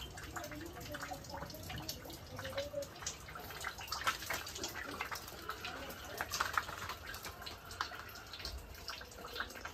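Water dripping and pattering irregularly in the wet aftermath of a hailstorm, many separate drops landing at uneven intervals.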